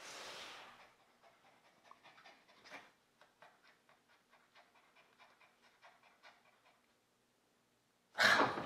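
A small dog panting faintly in quick, even breaths, then a sudden loud burst of sound near the end.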